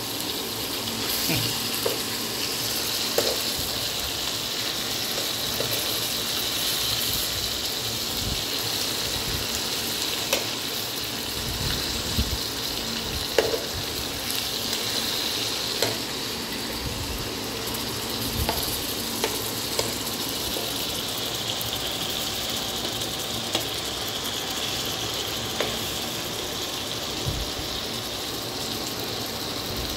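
Masala-coated fish steaks sizzling in shallow oil in a frying pan, a steady hiss, with now and then a click of a metal spoon against the pan as the pieces are turned.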